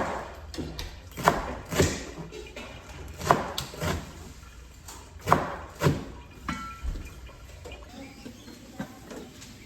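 Kitchenware knocking and clattering: a string of sharp knocks, several coming in pairs about half a second apart, growing fainter toward the end.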